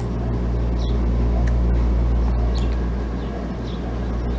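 A steady low rumble, like a vehicle engine running close by, with a few faint clicks.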